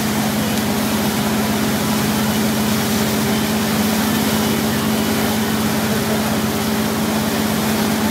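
Wake boat's engine running steadily under way, a constant drone that holds one pitch, over a steady rush of churning wake water and wind.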